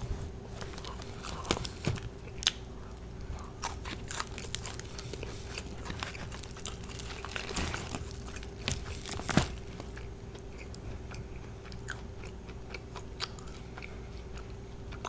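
A person eating extra crispy fried chicken, with chewing and scattered sharp crunches and crackles of the breading. The loudest crunch comes about nine seconds in, and a faint steady hum runs underneath.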